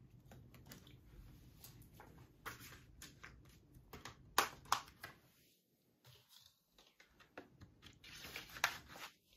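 Scattered small clicks and rustles of a plastic Blu-ray case and its discs being handled, with two sharp clicks about four and a half seconds in and another near the end.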